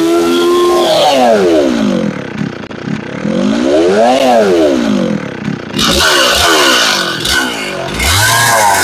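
Stihl 034 two-stroke chainsaw revving up and down again and again as it blocks out a log. Harsher cutting noise joins in for the last few seconds.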